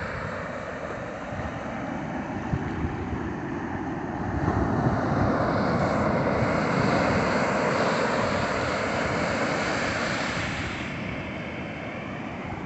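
Sea surf breaking and washing up the sand, a steady rushing noise that swells about four or five seconds in and eases off near the end.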